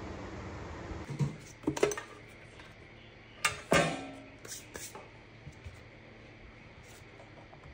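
Hard objects clinking and knocking a few times, the loudest pair about three and a half seconds in with a short ring after them.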